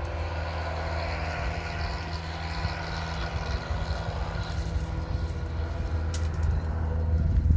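A steady low motor hum throughout, with a few sharp snaps and rattles of dry firewood sticks being gathered into an armful about six seconds in.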